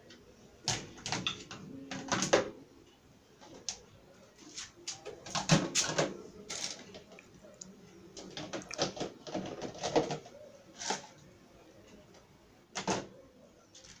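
Plastic containers, bowls and pots clattering and knocking against each other and against the dishwasher's wire rack as they are loaded in, in irregular bursts of clatter.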